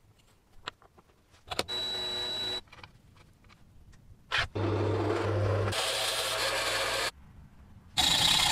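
Workshop sounds in quick succession: a few light clicks, a short steady whirring run of under a second, a louder noisy run with a low hum lasting about two and a half seconds, and near the end a hacksaw starting to cut metal held in a vise.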